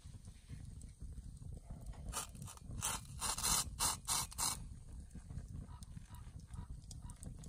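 Hot water poured from a kettle into a drip coffee filter over a metal mug, coming as a run of five or six short, loud spurts about halfway through, then a quieter pour.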